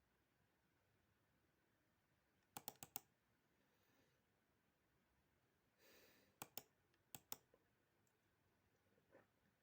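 Computer mouse clicking in short groups of two or three quick clicks, about three groups over a very quiet background, with a short soft breath just before the second group.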